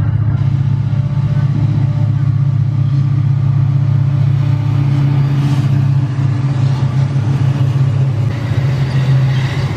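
Diesel-electric locomotives heading a long loaded coal train pass close by, with a steady, deep engine drone. Near the end the coal hopper wagons roll past and the rattle of wheels on rail grows.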